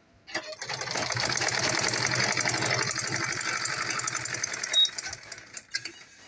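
Domestic straight-stitch sewing machine stitching a zipper onto a leather panel at a fast, even rate. It starts about half a second in, runs for about four seconds, and stops about five seconds in with a few clicks.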